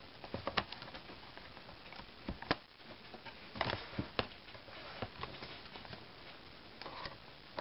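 Scattered small plastic clicks and scrapes at irregular intervals as the hinge-cover trim strip of a Dell Inspiron 1525 laptop is pried up and worked around its clips.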